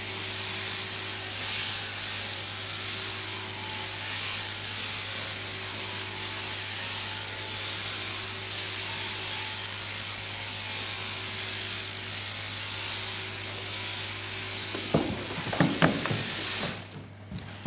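Electric sheep-shearing handpieces running steadily: a continuous high hiss of comb and cutter over a low motor hum. Near the end come a few loud knocks, and then the running noise cuts off suddenly.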